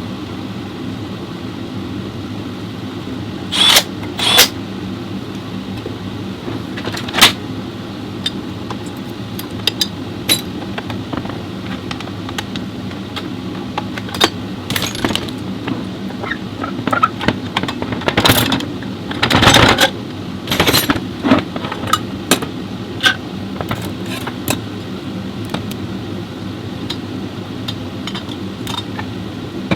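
Chevrolet Orlando diesel engine idling steadily, with scattered sharp clicks and clatters on top, a cluster of them about two-thirds of the way through.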